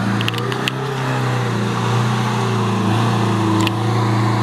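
Suzuki Jimny SJ410's 1.0-litre four-cylinder engine running at a steady speed, with a few sharp clicks about half a second in and again near the end.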